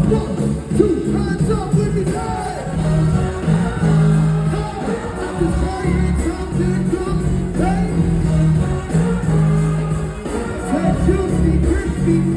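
Live band playing a groove with a repeating bass line, with a singer's voice over it.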